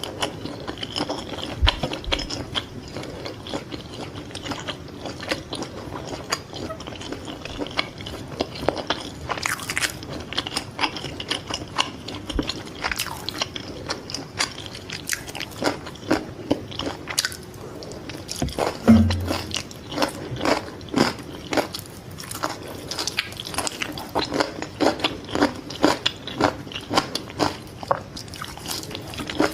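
Close-miked chewing and biting of fried fish balls, a dense run of irregular crunchy mouth clicks. One low thump about two-thirds of the way through is the loudest moment.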